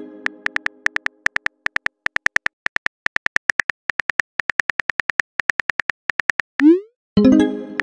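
Simulated phone-keyboard typing clicks, about four to five a second, as a text message is typed out. A chime fades out at the start, and near the end a short rising swoosh of the message being sent is followed by another chime.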